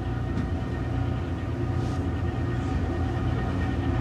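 Fishing boat's engine running with a steady low drone.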